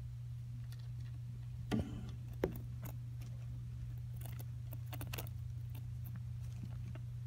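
A dwarf hamster nibbling seeds in paper bedding: scattered small clicks and crunches, two louder ones about two seconds in and a run of sharp clicks in the middle. A steady low hum sits under them.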